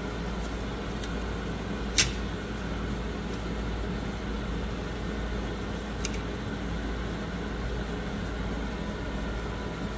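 Steady machine hum and hiss, like a running fan, with a sharp click about two seconds in and a fainter click about six seconds in.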